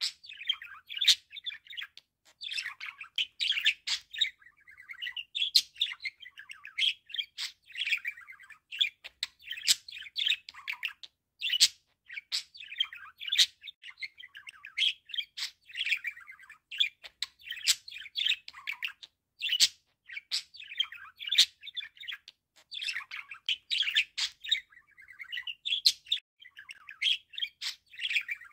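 Budgerigar warbling: a continuous, rapid stream of chattering chirps and short whistles, broken by frequent sharp clicks.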